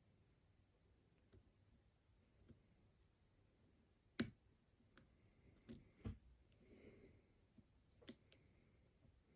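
Faint metal clicks of a lock pick working the pins of a pin-tumbler challenge lock, a few sharp ticks scattered through, the loudest a little past four seconds in and a small cluster after it.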